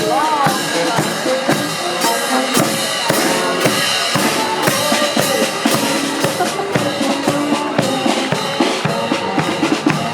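Marching band playing, its snare and bass drums beating steadily and prominent over the sustained notes of the band.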